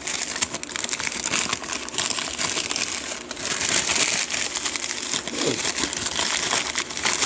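Wrapping material crinkling and rustling as it is handled and pulled off a packed lock by hand, a continuous crackle of small crinkles.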